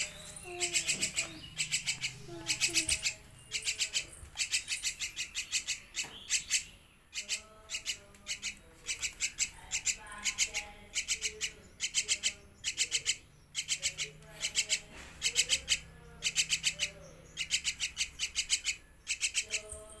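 Myna nestling begging for food: rapid high chirps in quick runs of about five to eight, repeated every second or so, as it gapes.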